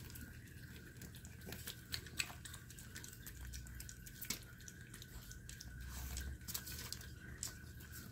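Maltese dog licking and chewing soft, ripe persimmon flesh held in a hand: faint, irregular wet smacking and small clicks.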